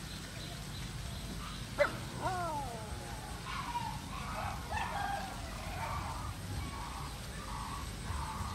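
A dog gives one sharp yelp about two seconds in, a short cry falling in pitch, followed by scattered short whines and whimpers.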